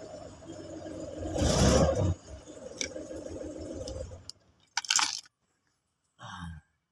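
Car engine running after starting, with a short surge of revs about a second and a half in; the sound cuts off suddenly a little after four seconds, followed by a few sharp clicks and a brief dull knock.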